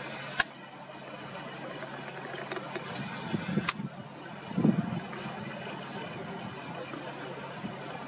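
River water trickling and flowing steadily, with two sharp clicks about three seconds apart and a few brief low rumbles.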